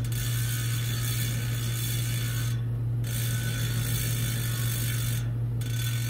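Hope RS4 centerlock road hub's two-pawl freehub clicking fast and steadily as the driver body is spun by hand, the pawls ticking over the ratchet ring. The clicking drops out briefly twice. A steady low hum runs underneath.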